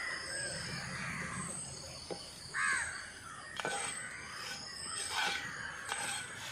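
A crow cawing, the loudest call about two and a half seconds in, with fainter calls before it. Under it come a few light clicks of a metal ladle stirring in a cooking pot.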